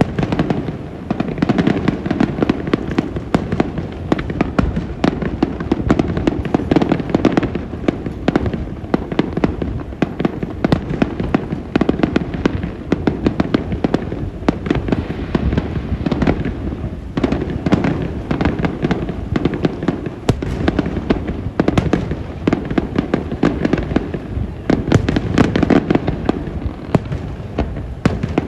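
Aerial fireworks display going off in a dense, continuous barrage: many sharp bangs and pops in quick succession over a rolling rumble of booms, with no pause.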